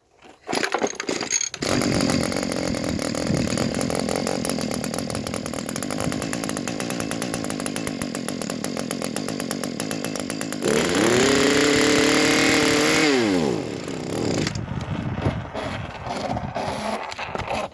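Two-stroke engine of an Echo string trimmer running. It is started, runs steadily, is revved louder about ten seconds in, then drops back and stops at the end. It will not stay running, which the owner puts down to a bad carburetor.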